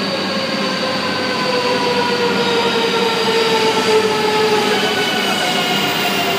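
Shinkansen train pulling into the platform and braking: a steady rush and rumble of the passing cars, with a whine that falls slowly in pitch as the train slows to a stop.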